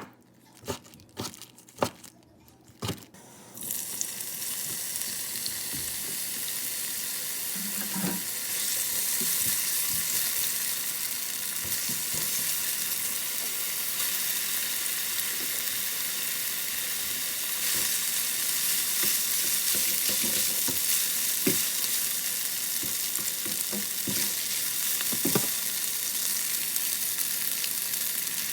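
A few sharp clicks, then food hits a hot pan about three and a half seconds in and sizzles steadily, with occasional light knocks of a utensil.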